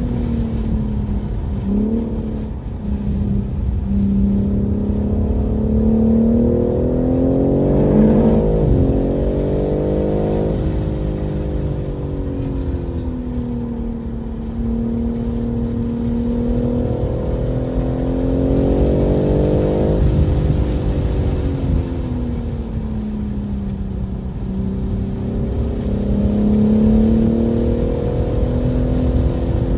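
BMW M3 Competition's twin-turbo inline-six engine lapping a racetrack under hard throttle. The revs climb to peaks about eight to ten seconds in and again about twenty seconds in, drop, then climb again near the end, over a steady rumble of road and wind noise.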